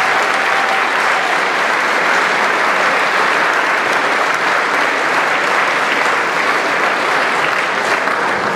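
Audience applauding steadily: many hands clapping in a dense, even wash.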